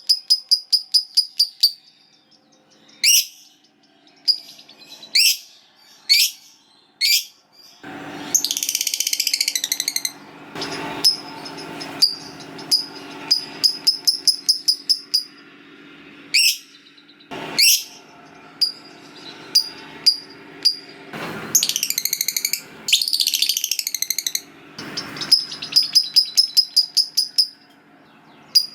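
Lovebird singing the long rattling chatter called ngekek: fast strings of high, clicking notes alternating with single rising whistled calls, and two long harsh chattering phrases, one about eight seconds in and one in the last third.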